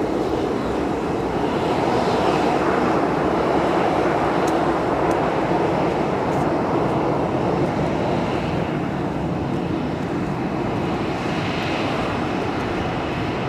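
Boeing 737-800's CFM56-7B jet engines running, a loud steady rush. It swells over the first couple of seconds and eases a little toward the end, with a faint higher engine whine rising and falling twice.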